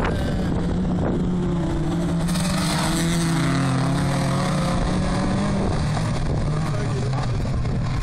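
Engines of racing cars on a dirt autocross track, several running hard at once, their engine notes shifting in pitch as the drivers change gear and speed.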